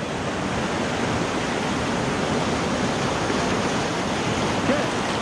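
Steady rush of whitewater tumbling through a rocky river rapid.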